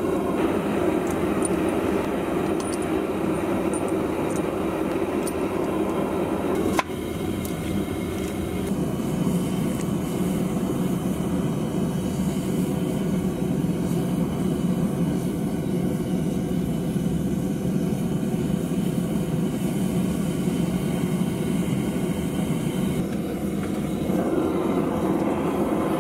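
Burner of a small metal-melting furnace running steadily with a loud rushing noise while it heats a crucible of brass to melting. The sound changes abruptly with a click about seven seconds in and shifts again near the end.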